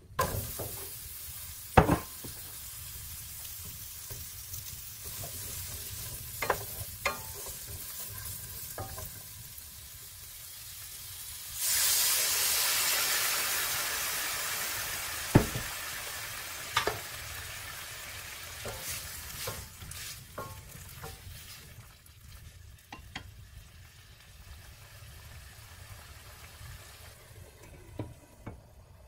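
Butter sizzling in a hot nonstick skillet. About twelve seconds in, a much louder sizzle starts suddenly as chopped poblano peppers go into the fat, then slowly dies down. Sharp knocks of a utensil on the pan come now and then, and a glass lid clinks onto the pan near the end.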